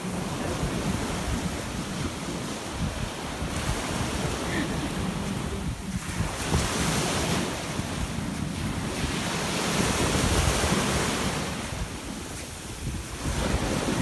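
Small Mediterranean waves breaking and washing up a sandy beach, the wash swelling and fading every few seconds, with wind rumbling on the microphone.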